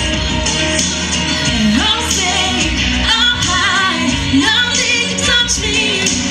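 A female solo singer sings a pop song into a handheld microphone, her amplified voice over continuous instrumental accompaniment.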